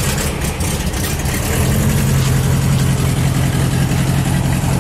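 Air-cooled flat-four engine of a VW Thing running at low revs as the car drives slowly off, its steady note growing a little louder about one and a half seconds in.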